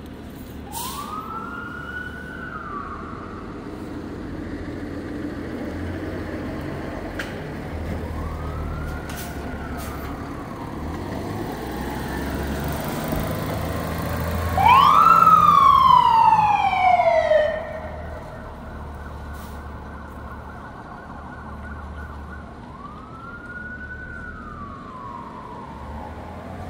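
Fire truck siren sounding in separate rise-and-fall wails a few seconds apart over the truck's low engine rumble. It is loudest just past the middle as the truck drives by, then fainter as it moves away.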